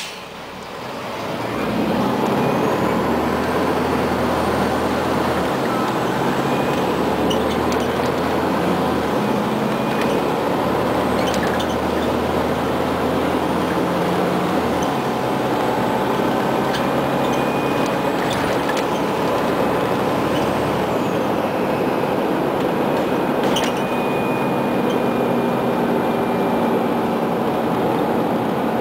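Scania CN94UA OmniCity articulated city bus heard from inside the cabin, pulling away from a stop. The engine builds up over the first couple of seconds, its low drone stepping up several times as the bus changes through the gears, then it runs steadily with the occasional rattle.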